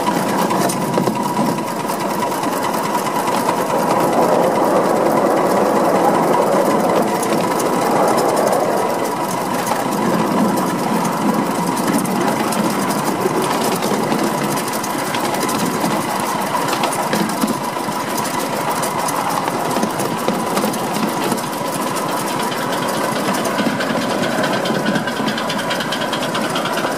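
5-inch gauge miniature Krauss steam locomotive running under way, its exhaust beating in quick, even chuffs.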